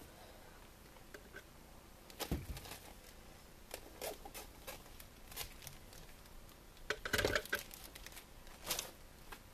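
Scissors and plastic packaging being handled out of shot: a few scattered rustles and clicks, the loudest cluster about seven seconds in.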